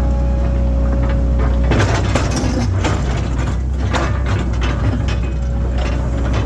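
Link-Belt excavator running with a steady engine hum and hydraulic whine. From about two seconds in, a couple of seconds of crunching and cracking as the bucket digs and scrapes through topsoil and gravel.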